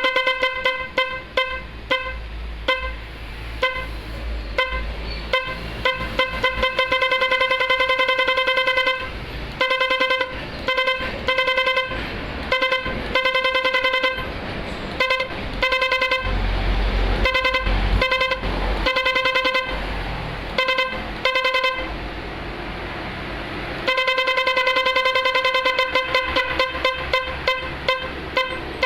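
Electric horn driven by a 24-volt pulsing horn module, sounding one steady pitch chopped into stuttering patterns: fast trains of short beeps, single toots and longer held blasts that change pattern every few seconds.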